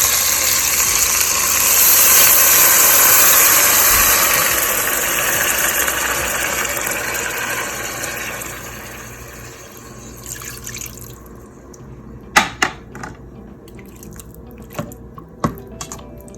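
Water pouring into a cooking pot of chicken, steady at first and tapering off about ten seconds in. A few sharp knocks follow near the end.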